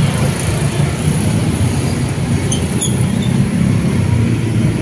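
Steady low rumble of motor-vehicle traffic running close by.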